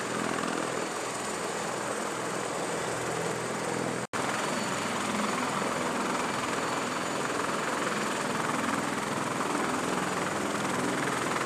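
CH-53E Super Stallion heavy-lift helicopter running on the ground with its rotors turning: a steady rush of rotor and turbine noise with a constant high turbine whine from its three turboshaft engines. It drops out for an instant about four seconds in.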